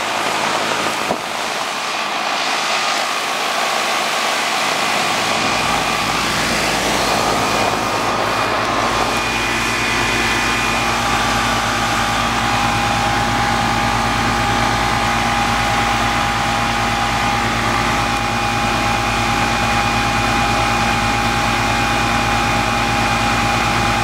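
Air-conditioning condenser unit running, its compressor and condenser fan giving a steady rush of air with a steady hum. The low end fills in about five seconds in, and a higher steady tone comes in around ten seconds in.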